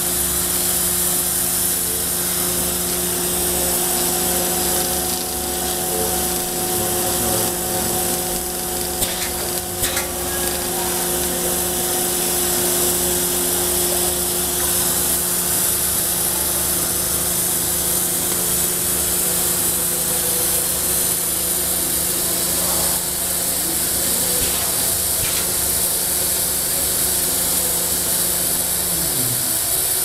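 Cup crimping machine running: a steady mechanical whir and rubbing from its spiral rollers and chain drive, over a low motor hum. A few clicks come about a third of the way in, and the hum falls away near the end.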